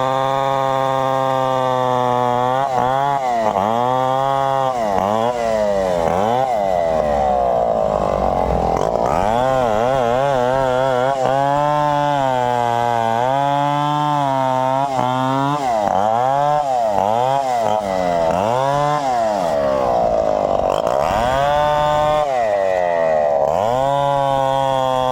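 Two-stroke chainsaw running and cutting, its engine revving up and dropping back over and over.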